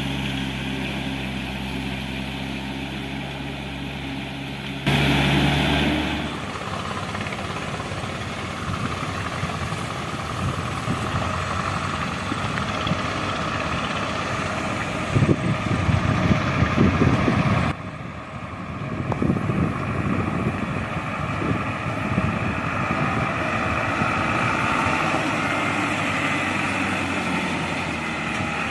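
Diesel engines of heavy road-construction machinery running. First an engine idles steadily, then the sound changes abruptly about five seconds in to engines working harder, with a louder, rougher stretch around the middle that cuts off suddenly.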